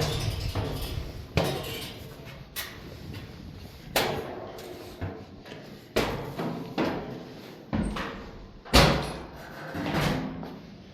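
A series of irregular knocks and thuds, one every second or two, the loudest about nine seconds in.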